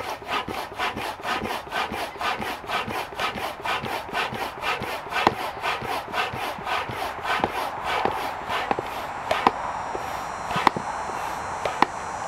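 Stand-up hand pump with a hose inflating an inflatable paddleboard seat: quick, even pump strokes, about four a second, that stop about nine seconds in. A few sharp clicks follow.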